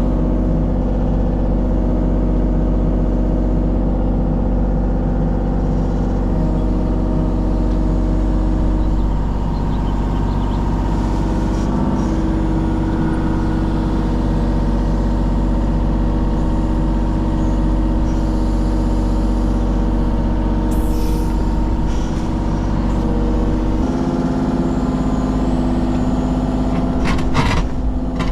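Kubota KX033 mini excavator's diesel engine running steadily, its note shifting a few times as it works, with a few sharp clanks near the end.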